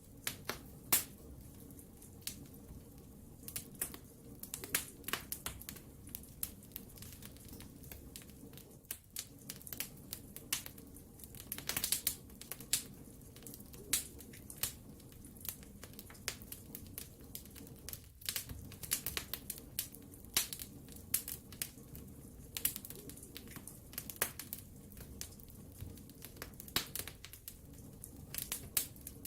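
Wood fire burning in a fireplace: irregular sharp crackles and pops, some in quick clusters, over a low steady hiss.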